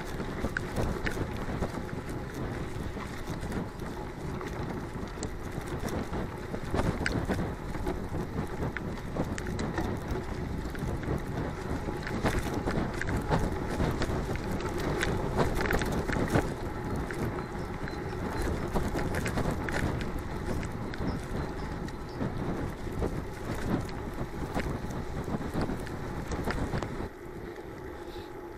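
Mountain bike riding fast over a rough dirt track: wind rushing over the microphone, with tyre noise and frequent rattles and knocks from the bike. It goes quieter near the end.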